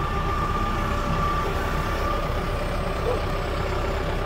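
Kubota M4 tractor's diesel engine running steadily as the tractor drives, with a steady whine over the low engine rumble.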